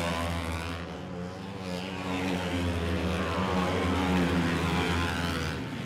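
Flat-track race motorcycles running hard around a dirt oval, engine pitch rising and falling as the bikes pass. The sound swells near the start and again around four seconds in.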